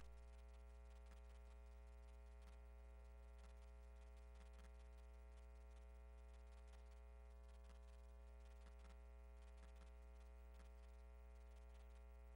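Near silence: a faint, steady electrical hum on the recording, with a few faint ticks.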